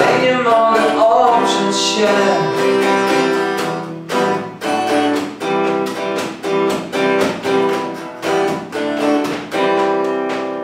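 Hollow-body archtop guitar strummed in a steady rhythm, about two strokes a second. A sung note trails off in the first two seconds.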